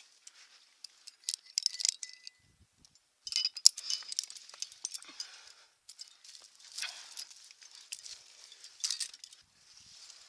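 Metal climbing gear, carabiners and quickdraws hanging from a harness, clinking and jangling irregularly as the climber moves, with light scraping against the rock.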